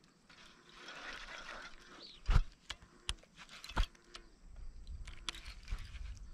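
Handling noise on the camera: a sleeve rustling against it, with two loud sharp knocks and a few lighter clicks as the arm brushes past.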